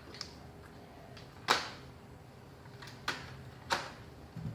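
A handful of sharp knocks and clicks from boxed parts and packaging being handled and set down, the loudest about one and a half seconds in.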